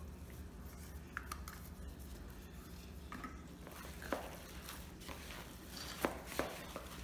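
Gloved hands mixing ground pork in a plastic bowl, with a few sharp clicks and knocks against the bowl over a steady low hum.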